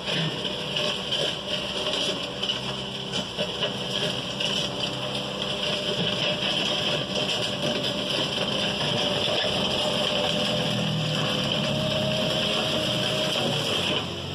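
Diesel engine of a JCB compact telescopic loader running steadily under load as it pushes a box grader through loose soil, with an even hiss over the engine note. The sound changes abruptly right at the end.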